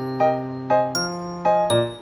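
Background music: a light instrumental melody of separate notes, a new note every quarter to half second, each starting sharply.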